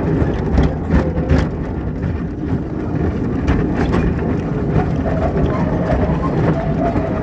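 Small passenger train running, heard from its open carriage: a steady low rumble of wheels on track with a few sharp clicks.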